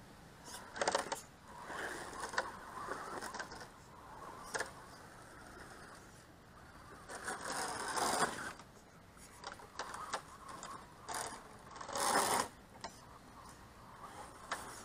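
RC monster truck's motor and gears whining in repeated short bursts as it is throttled over dirt, with its tyres scraping through loose soil; the loudest burst comes about twelve seconds in.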